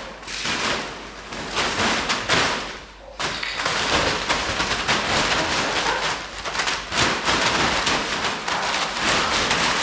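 Polythene sheet crackling and rustling in uneven surges as a dog pulls and plays with it.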